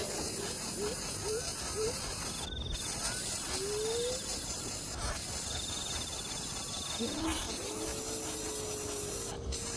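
Crickets trilling in short repeated bursts over a steady hiss, with a few short rising calls and, near the end, one longer held call lower in pitch.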